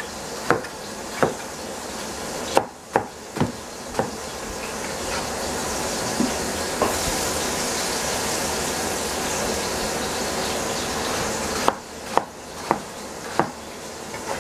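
Cleaver chopping eggplant on a plastic cutting board: sharp knocks in short runs, with a gap of several seconds before a final run of four, over a steady hiss.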